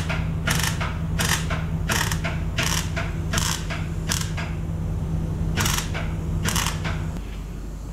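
About a dozen short rasping strokes in quick succession, with a pause before the last two, over a steady machine hum that cuts off about seven seconds in.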